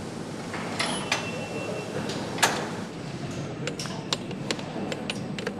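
Engine assembly-line noise: a steady background hum with many sharp metallic clicks and knocks from tools and parts being handled, one of them louder about two and a half seconds in.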